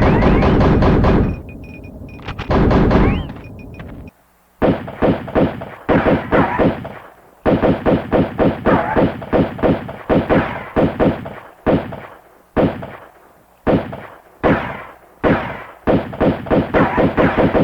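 Gunshot sound effects: after a loud, dense opening second and a short burst about three seconds in, a long string of sharp shots follows, some in rapid bursts of several shots a second, others single shots about a second apart, each with a short echoing tail.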